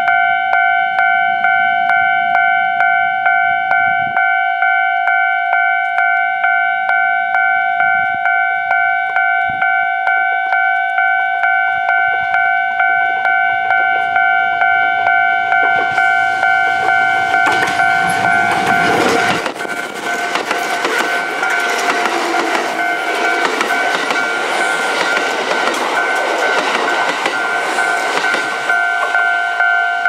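Japanese level-crossing warning bell ringing with a steady, repeating two-tone ding. From about halfway through, a Kintetsu 5200-series and 1420-series express train approaches and passes close by. Its running noise on the rails rises over the bell and stays loud until near the end.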